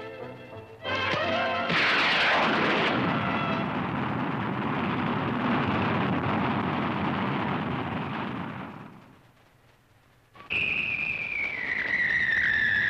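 Cartoon rocket-launch sound effect: a loud rushing blast about a second in that holds for several seconds, then fades away. Near the end, a high whistle slowly falls in pitch as the nose cone drifts down on its parachute.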